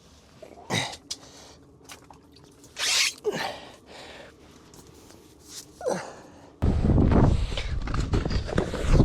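A few short sounds, each falling quickly in pitch, then, about two-thirds through, a sudden loud rush of wind buffeting the microphone.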